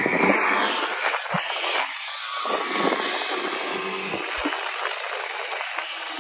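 Quad bike engines running on the dunes, under a steady hiss of noise.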